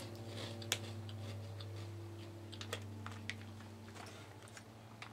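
Chewing a crunchy honey butter potato puff with the mouth closed: scattered small crunches and clicks that thin out toward the end, over a steady low hum.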